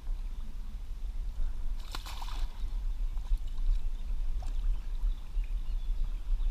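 Water sloshing as a fish is held and released in shallow river water, with one short splash about two seconds in, over a steady low rumble.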